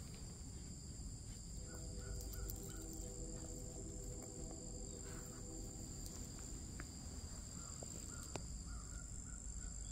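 Steady high-pitched drone of insects, with two runs of short, evenly repeated chirping notes a few seconds apart.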